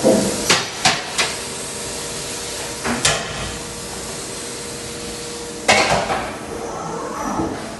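CNC lathe at work: a steady machine hum with sharp metallic clanks, three quick ones at the start, one about three seconds in and a louder one near six seconds, where the hum stops.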